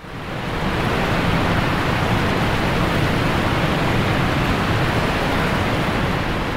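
Steady rush of water cascading over rocks, fading in over the first second.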